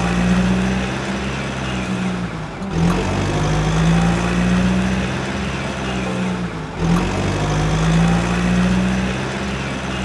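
Vehicle engine sound effect running steadily, looped: three stretches of about four seconds each, cut by two short breaks.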